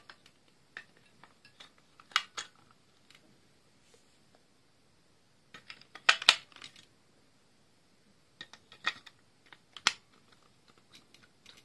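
AA batteries being handled and fitted: scattered sharp clicks and clinks of small hard objects, loudest about six seconds in and again near ten seconds.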